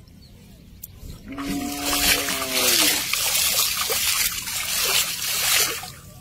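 Water splashing and streaming as a cast net is hauled in through shallow water, starting about a second in and stopping shortly before the end. A short held, pitched sound, like a brief voice, sounds under the water noise near the start.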